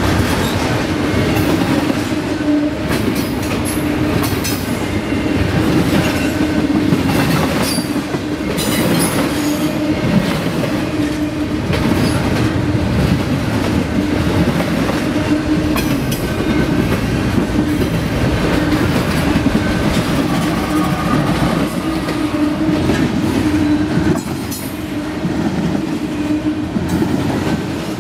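Double-stack intermodal freight cars rolling past at close range: steady rumble of steel wheels on rail, with repeated clicking from the wheels and a steady low ring.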